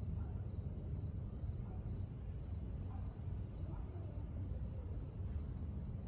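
Insects keeping up a steady high-pitched trill, over a constant low rumble.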